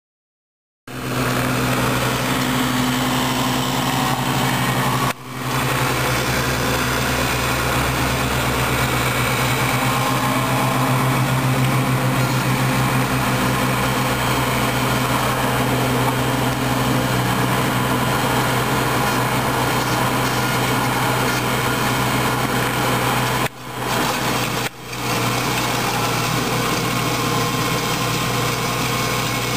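Compact tractor's engine running at a steady speed while driving its rear-mounted snowblower, with an even, constant hum. The sound begins about a second in and cuts out briefly three times.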